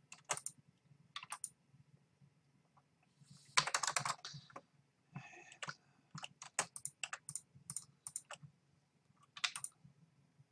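Computer keyboard keys and mouse buttons clicking, single clicks and short flurries of keystrokes at irregular intervals, over a faint steady low hum.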